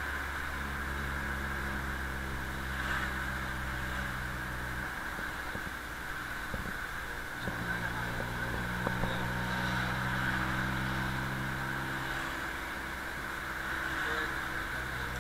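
Engine of the open-sided passenger vehicle running as it drives, heard muffled through the camera's closed waterproof case. The engine hum fades for a couple of seconds about five seconds in, then comes back.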